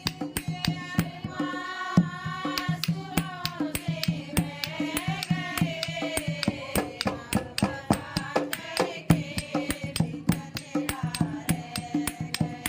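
Indian devotional song: a voice singing a wavering melody over a fast, steady percussion beat of about four or five strikes a second.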